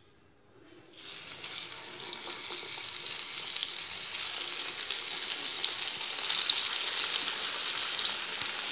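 Gram-flour-battered cauliflower pakoras sizzling in hot oil as they are slipped into the pan for their second frying. The sizzle starts about a second in and builds as more pieces go in, with scattered crackles.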